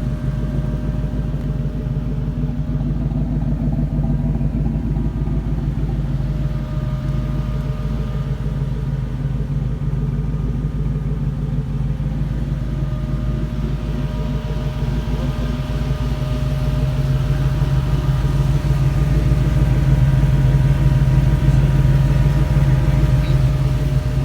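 Chevrolet C1500's 5.3 V8 engine running steadily, swelling louder about two-thirds of the way through.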